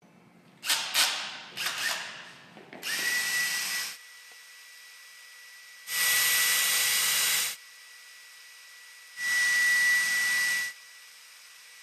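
Cordless drill-driver driving screws up into the underside of a wooden tabletop: three separate runs of about a second to a second and a half each, with a steady motor whine. A few sharp clattering noises come before the first run.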